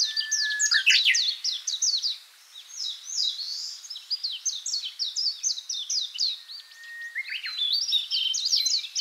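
Songbirds chirping: quick, high chirps and falling sweeps several times a second, with a steady whistled note at the start and another about seven seconds in.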